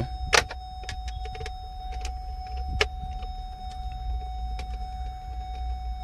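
Clicks and taps of a screwdriver turning a Phillips screw out of a plastic USB/AUX port housing, with a sharp click about half a second in and another near three seconds. A steady low hum and a thin steady whine run underneath.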